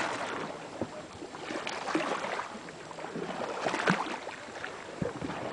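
Raft paddles dipping and splashing in lake water, with a stroke swelling about every two seconds.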